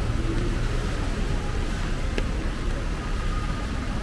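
Heavy rain drumming steadily on an umbrella overhead, a dense even patter of large drops with a sharper drop hit about two seconds in.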